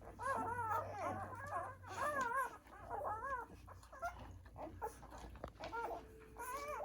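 Newborn poodle puppies squeaking and whimpering while they nurse: a string of short, high calls that rise and fall in pitch, several a second for the first few seconds, then a lull and two more near the end.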